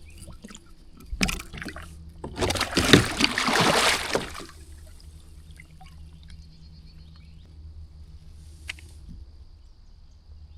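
Water splashing and sloshing beside a kayak: a short splash about a second in, then a louder splash lasting about two seconds, then only quiet water.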